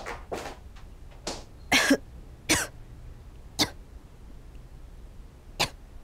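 A person with a cold coughing: about six separate coughs spread a second or so apart, the loudest near two seconds in and the last near the end.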